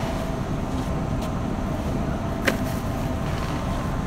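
Supermarket interior ambience: a steady low rumble with a faint steady hum underneath. A single sharp click or clack comes about two and a half seconds in, with a few fainter ticks around it.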